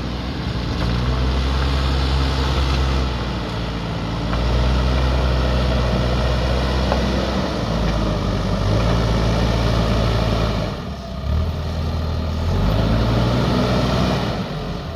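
Diesel engine of a JCB backhoe loader running under working load, its note swelling and easing several times and dropping briefly about eleven seconds in.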